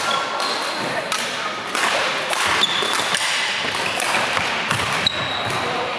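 Badminton rally: sharp racket hits on the shuttlecock and brief squeaks of shoes on the wooden court floor, over the echoing din of other games in the hall.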